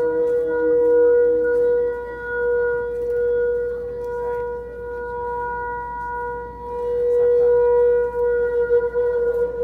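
A wind instrument holding one long, steady note for about nine seconds, swelling and easing in loudness, with a lower note sounding under it that drops out about two seconds in.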